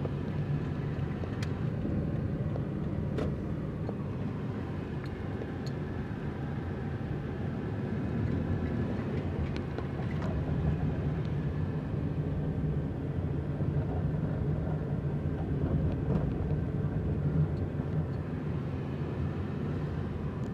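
Steady low engine and tyre rumble heard from inside the cabin of a moving car, with a few faint clicks.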